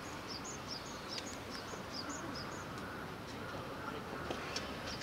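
Small bird chirping: a quick run of short, high-pitched chirps, several a second, which stops about halfway through.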